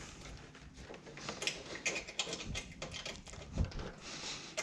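Irregular small clicks and rattles of hands handling wiring and small parts while fitting a horn ground cable, with a soft low thump about three and a half seconds in.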